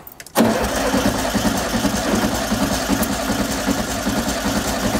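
VW Beetle 1303's air-cooled flat-four engine turned over on the starter for a compression test of the second cylinder, starting about half a second in and cranking at an even, rapid beat.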